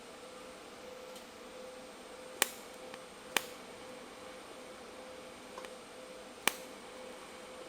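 Three sharp clicks over a steady low hum: the first two about a second apart, the third some three seconds later.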